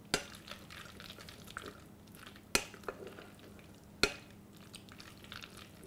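A silicone spatula stirring mayonnaise-coated macaroni salad in a glass bowl: soft wet squishing, with a few sharp knocks of the spatula against the bowl, the clearest about two and a half and four seconds in.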